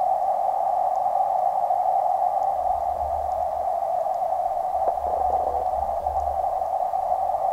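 Steady, muffled hiss heard underwater through a camera's waterproof housing in a creek, with low rumbling knocks through the middle.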